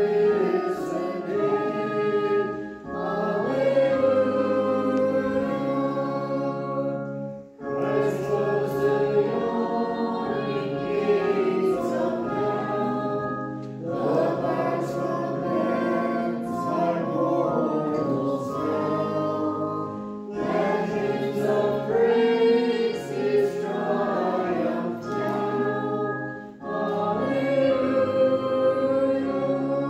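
A congregation singing a hymn over sustained accompaniment chords, phrase by phrase, with a short break between lines about every six seconds.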